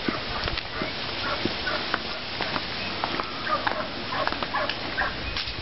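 Laying hens clucking and calling in short scattered notes, with footsteps on a concrete path.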